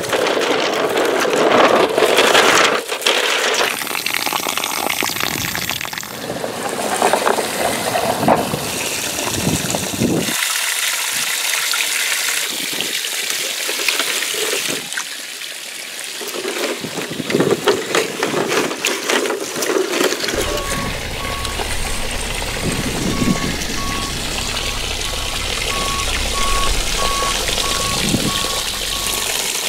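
Water spraying from a garden hose, hitting a brick wall and splashing over plastic toy trucks, mixed with rustling as the toy trucks are pushed through long grass and weeds. In the last third a steady low hum sets in, with a short high beep repeating.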